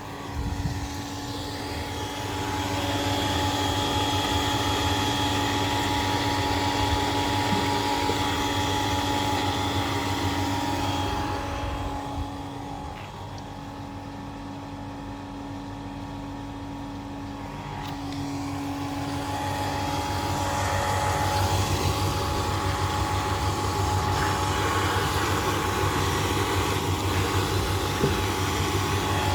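Kamco power flushing machine's pump running with a steady mechanical hum and whine; it turns quieter for several seconds around the middle and then builds back up. The unit is one with a fault.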